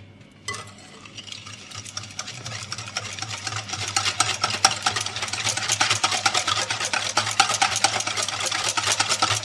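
Stainless steel balloon whisk beating eggs, oil and sugar in a glass bowl: a fast run of metal-on-glass clicks and rattles that starts about half a second in, builds over the first few seconds and then keeps going loud and fast.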